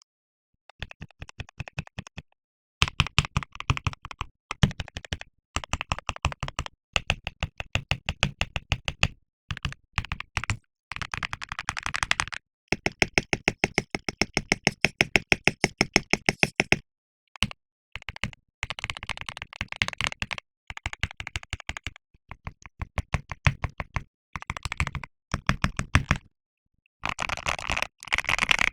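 KBD67 Lite R4 mechanical keyboard with lubed Alpaca linear switches, Durock V2 stabilisers, PBT keycaps and PE foam: bursts of rapid repeated keystrokes on the modifier keys, separated by short pauses. Near the end it changes to typing on the letter keys.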